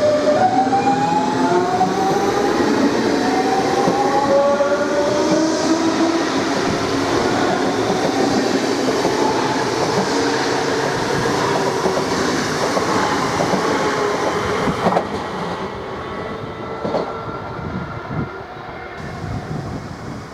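DB class 424 S-Bahn electric multiple unit pulling away, its electric drive giving a whine of several tones that climb in pitch as it gathers speed. Running noise follows, with a few sharp knocks over the rails near the end, and then the sound fades as the train moves off.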